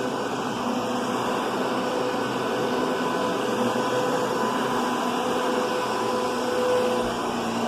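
Kenmore Progressive vacuum cleaner running steadily: a rush of air with a steady motor whine.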